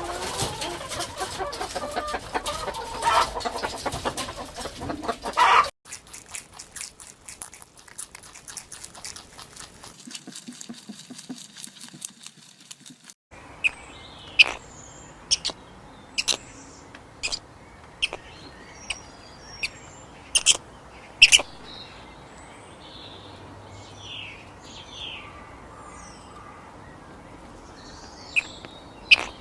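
Chickens clucking for the first several seconds, then a quieter stretch of noise after a cut. From about halfway on, a series of short, sharp bird calls comes about once a second.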